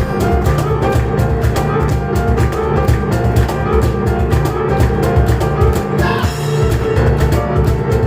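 Live piano and cajón duo playing a fast instrumental, with a steady run of quick percussion strikes under the piano.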